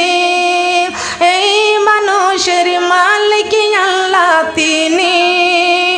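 A woman singing a Bengali Islamic devotional song about the Quran, in long held notes that waver in pitch, with a short breath about a second in.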